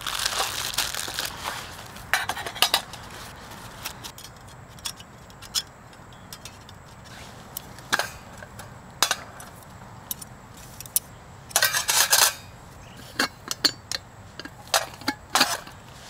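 Folding metal camp stove and nesting cook pot being unpacked and set up on a metal base plate: irregular light metal clinks and knocks, with rustling of a fabric stuff sack near the start and a cluster of louder handling noises about twelve seconds in.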